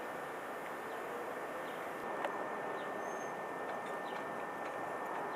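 Steady outdoor ambient noise with a thin, steady high tone running through it, a few faint scattered clicks, and a short high chirp about three seconds in.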